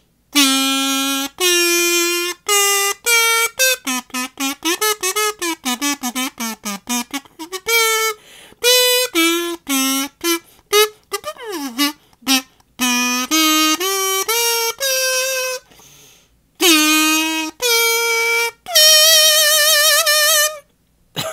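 Intro music: a single reedy wind instrument plays a solo melody in separate notes, with a quick run of short notes, a slide down and back up in pitch near the middle, and a long wavering note near the end.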